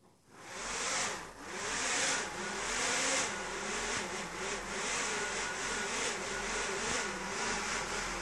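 Small electric motor spinning up the propeller of a homemade helicopter test rig about half a second in, then running with a whirring hum and an airy rush of air, its pitch wavering up and down as the PID controller varies the motor speed.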